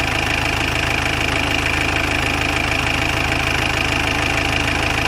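Jeep engine idling steadily.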